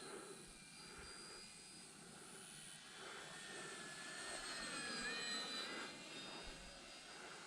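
Brushless electric motor and propeller of an Arrows F8F Bearcat RC model warbird in flight: a faint whine that swells as the plane passes, loudest about five seconds in, where its pitch drops.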